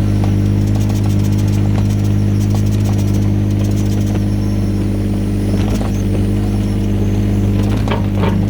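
Yanmar VIO17 mini excavator's three-cylinder diesel engine running steadily, with a few short knocks in the second half.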